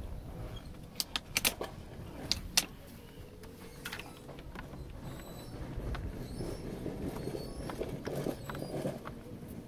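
Plastic steering-column parts and wiring connectors being handled: a handful of sharp clicks in the first few seconds, then softer rattling and rustling.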